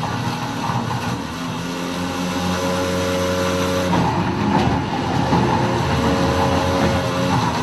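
Grundfos SEG submersible sewage grinder pump running: a steady motor hum whose tone shifts a few times.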